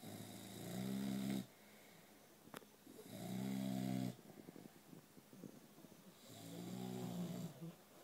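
Boxer dog snoring: three long snores about three seconds apart, each growing louder and then stopping abruptly.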